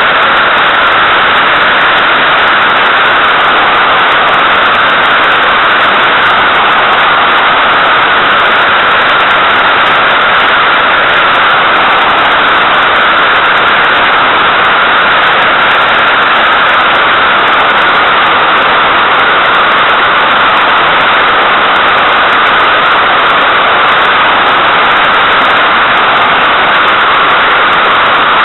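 Airflow rushing over the microphone of a small camera mounted on the tail of an SZD-50 Puchacz glider in flight: a loud, unchanging hiss, strongest in the upper middle, with no engine note.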